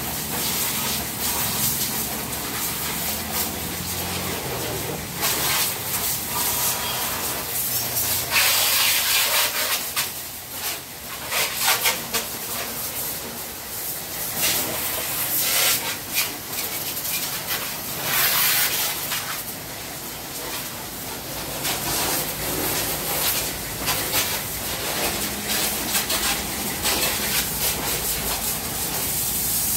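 High-pressure water jet from a pressure washer spraying onto motorcycles: a loud hissing spray that swells and drops as the jet is moved and checked.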